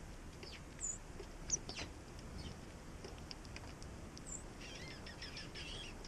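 Flock of small songbirds (dark-eyed juncos and sparrows) feeding, giving a few short high chip notes and scattered ticks, with a brief burst of twittering near the end.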